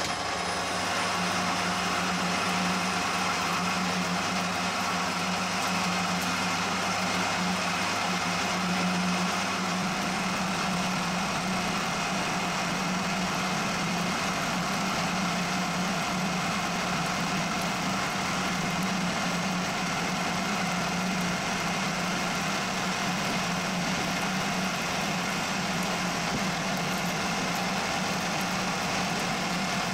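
Metal lathe running steadily while an insert turning tool cuts down a bar held in the chuck, peeling off curled chips. A steady machine hum, with a lower part of the hum dropping away about ten seconds in.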